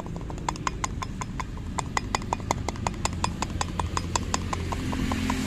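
Pulsar 150 clutch housing knocking in a rapid, even series of sharp 'khat khat' clicks, about eight a second, as the loose housing is worked back and forth: the sign of its worn-out cushion rubbers.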